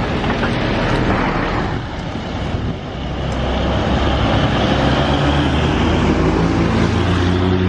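Traffic noise on a hill climb, then a heavy vehicle's engine pulling up the grade: a low, steady engine note that builds in the last couple of seconds.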